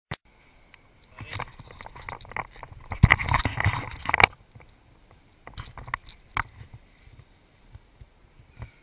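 Penny plastic cruiser skateboard wheels rolling over wet asphalt, a rumbling hiss with irregular clicks and knocks. A louder rush of noise comes about three seconds in and lasts just over a second.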